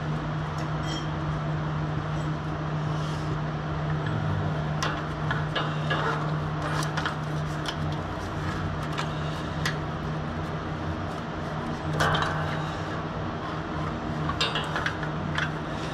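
Light metallic clicks, taps and scrapes as a blue-handled tool and a new grass flap control cable are worked through a gap in a Ferris Z3X mower's steel frame. The clicks are scattered, with a cluster about twelve seconds in and more near the end. A steady low hum underlies them throughout.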